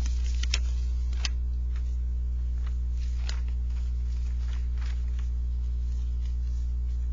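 Steady low electrical hum, with a few faint clicks or taps.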